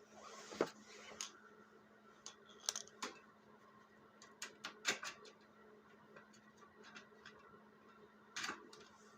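Scattered light clicks and knocks of tools and small metal parts being handled while a snow blower carburetor is taken apart for cleaning, with a short hiss near the start and another near the end. A faint steady hum runs underneath.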